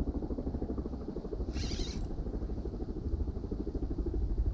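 Daiwa BG 3500 spinning reel cranked steadily against a hooked striped bass, its gears giving a rapid, even whirr. Wind rumbles on the microphone throughout, and a short hiss comes about one and a half seconds in.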